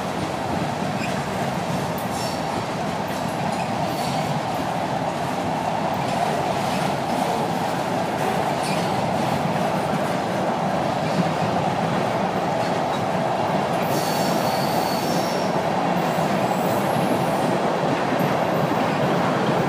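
Freight train cars rolling past steadily on the rails, with brief high wheel squeals, clearest about fourteen seconds in.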